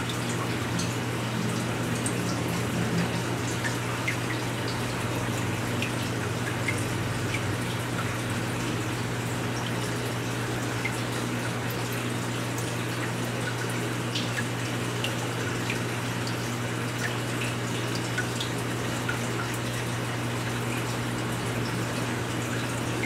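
Water trickling and dripping steadily in a fish tank, with many small drips and a low steady hum underneath.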